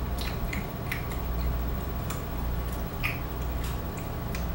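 Irregular crunches and clicks of homemade hard-candy 'glass' being chewed, a few sharp crackles spread over the seconds with the loudest about three seconds in, over a steady low hum.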